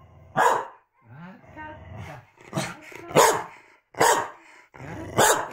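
Corgi barking repeatedly: about five loud, sharp barks roughly a second apart. These are attention-seeking barks aimed at its owners.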